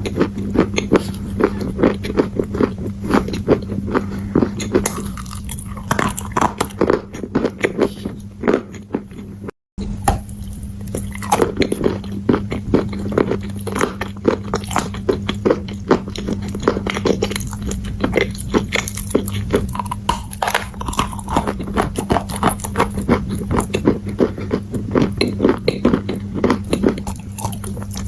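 Dry clay being bitten and chewed close to the microphone: a dense run of sharp, crackling crunches, over a steady low hum. The sound drops out completely for a moment about ten seconds in.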